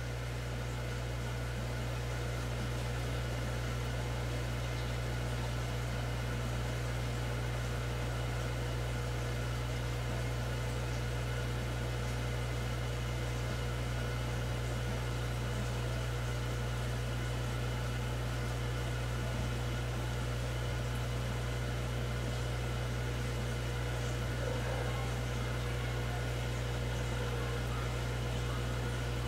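Steady low hum of running aquarium pumps, with a faint higher whine.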